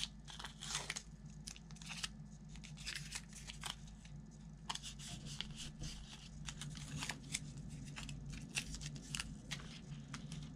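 Strips of blue painter's tape being peeled off a plastic template sheet and handled, giving faint, scattered crackles and clicks over a steady low hum.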